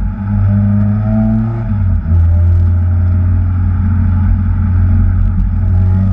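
Supercharged Acura TSX engine pulling hard, its pitch climbing in repeated rises, with brief dips in level at the start and about two seconds in.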